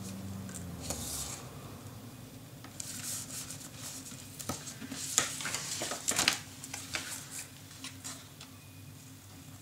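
Paper being handled and rubbed down by hand while double-sided tape is applied, with irregular short scrapes and rustles.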